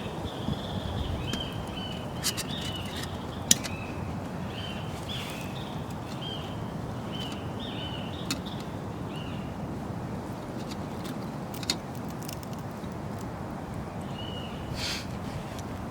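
A bird calling with a rapid series of short, high chirps, falling quiet partway through and giving one more call near the end, over a steady outdoor background hiss with scattered sharp clicks.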